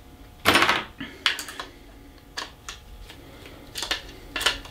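Small metal screws, tools and circuit-breaker parts being handled on a workbench: a short rustle, then a scattering of light, sharp clicks and taps.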